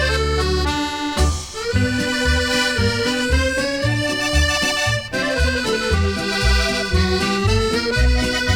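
Accordion playing a lively instrumental melody over a band accompaniment, with low bass notes pulsing on an even beat.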